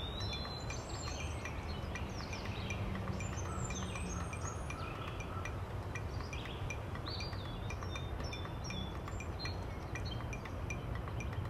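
Background music of high, tinkling chimes over a low steady hum.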